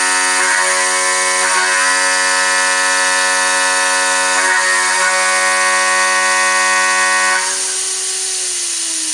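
The spindle of a 5040 CNC router runs with a steady, high-pitched whine, broken twice by a brief rougher patch. About seven seconds in, the sound drops, and near the end the whine slides steadily down in pitch as the spindle winds down.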